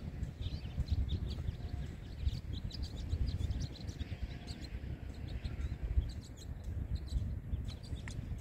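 Low wind rumble on the microphone, with many short bird chirps throughout.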